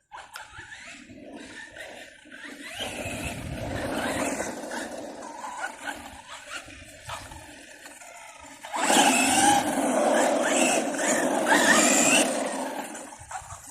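Brushless electric motor of a radio-controlled truck whining as it drives, with drivetrain and tyre noise, its pitch rising and falling with the throttle. It runs louder from about nine seconds in until near the end.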